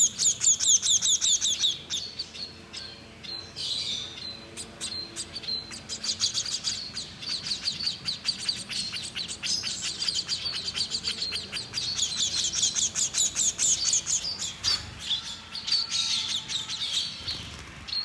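Hungry hand-reared finch chicks giving rapid, high-pitched begging chirps as they are fed from a syringe. The calling is loudest in the first couple of seconds, eases off briefly, then picks up again.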